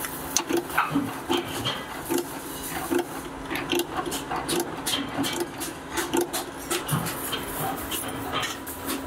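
Mechanical power press punching holes in a steel muffler tube: repeated short metallic strokes about two a second, over the steady hum of the running press.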